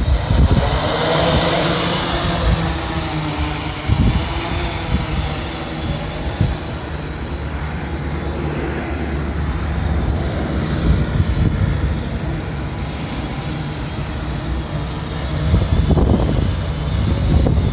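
Electric motors and propellers of a 3D-printed Y6-layout hexacopter in flight, a high whine that wavers up and down in pitch as the throttle changes, over a dense low rumble. It swells louder a few times.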